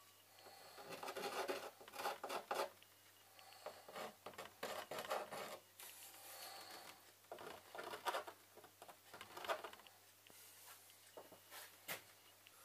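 Handling noises: irregular soft rustling and light clicks as small plastic figures and parts are picked up and set in place by hand, with a couple of sharper clicks near the end.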